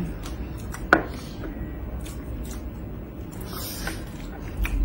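Close-miked eating sounds: braised pork hock being pulled apart by hand and chewed, with soft wet squishes and scattered short clicks, the sharpest about a second in.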